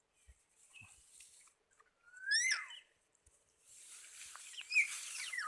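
Bird calling: a whistled call that sweeps up and then drops, about two seconds in, with quick high strokes above it. It is followed in the second half by a burst of scratchy noise and more swooping calls near the end.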